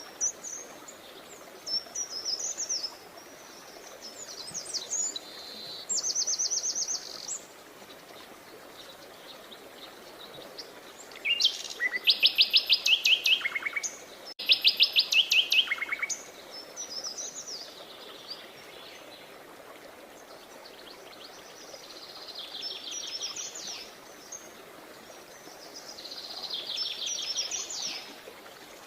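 Songbirds singing: a series of chirps and rapid trills, loudest in the middle, over a steady background hiss.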